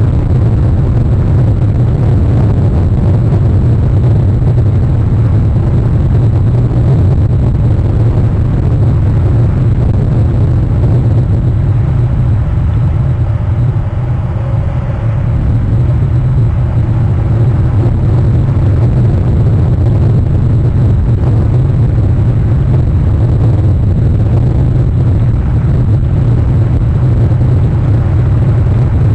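Steady low rumble of rain and wind on an outdoor nest-camera microphone.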